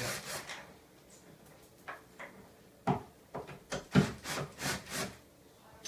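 Wood rubbing and scraping: a couple of scattered knocks, then a quick run of short scraping strokes, several a second, about three seconds in.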